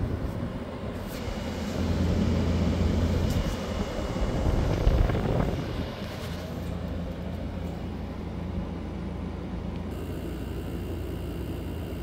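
2021 Frigidaire window heat pump running, a steady low mechanical hum that swells louder for a few seconds about two seconds in, then settles.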